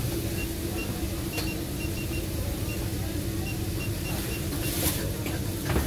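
Steady low hum and rumble of background noise at a street-food stall, with a few faint clicks.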